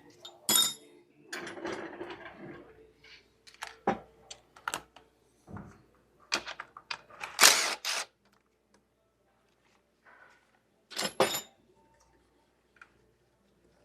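Scattered clinks, clacks and knocks of hand tools and metal parts being handled while engine components are taken apart, with a brief rustle about two seconds in. The loudest clatter comes a little past halfway, and a quick double knock follows later.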